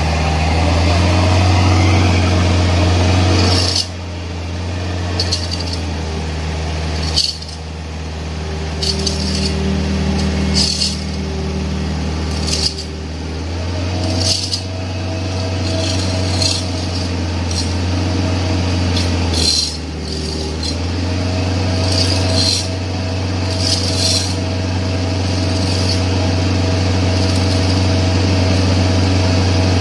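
Excavator engine running steadily, its note dropping and picking up again several times as it comes under load, with sharp metallic clinks every second or two.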